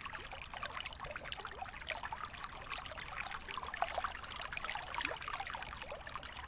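Fast stream running over rocks: a steady rush of water with many small splashes and gurgles.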